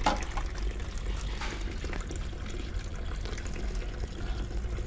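Water trickling and splashing while a wet kitten is washed by hand in soapy water.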